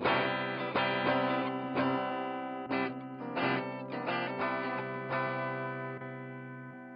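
Guitar played through a Hotone Ampero 2 multi-effects and amp-modelling unit: a run of strummed chords and picked notes, then a last chord left ringing and slowly fading over the final couple of seconds.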